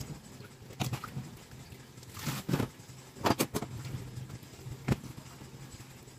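Hands handling wet milkfish pieces in a stainless-steel sink and basin: a few scattered knocks and wet clatters, loudest in a quick cluster about three seconds in, over a faint low hum.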